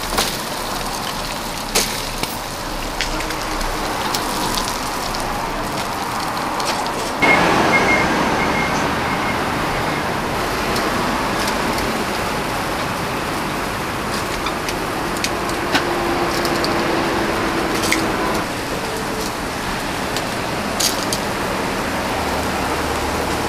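Charcoal grill sizzling and crackling, with scattered sharp pops over a steady hiss. The hiss gets louder about seven seconds in.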